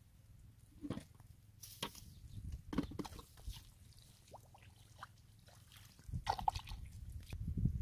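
Shallow muddy puddle water splashing and sloshing in a few separate short splashes, as a hoe and feet work in the mud. A low rumble grows louder from about six seconds in.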